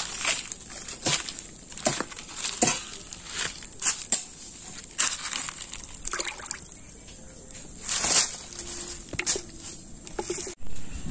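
Small freshly caught fish flapping and rustling on dry fallen leaves, then splashing in a bucket of water as a hand reaches in, in a string of short crackles and splashes over a steady high hiss.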